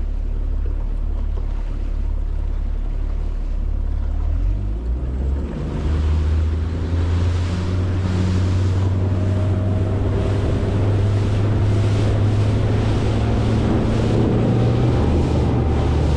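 Motorboat engine running steadily, then throttling up about five seconds in, with the rush of water and wind on the microphone growing as the boat picks up speed.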